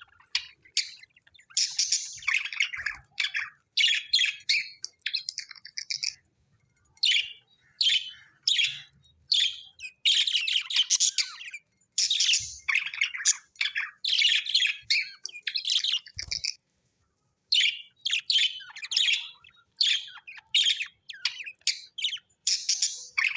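Budgerigars chirping in quick runs of short, high chirps, broken by brief pauses.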